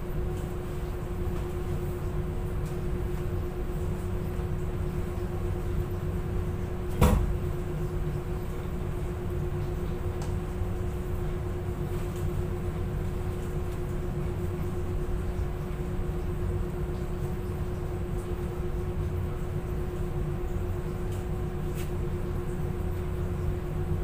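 Steady low hum of laundry-room machinery with a constant tone running through it, and one sharp knock about seven seconds in.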